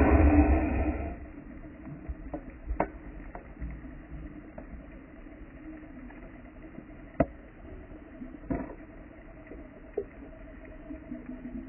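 Underwater sound at a shipwreck: a scuba diver's exhaled bubbles rush and rumble, dying away about a second in, then a quiet hissing background with a few single sharp clicks.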